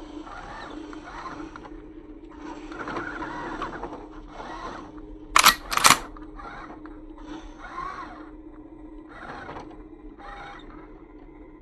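Radio-controlled dump truck's electric drive whirring in short bursts as it reverses, over a steady low hum. Two sharp clicks come half a second apart about midway.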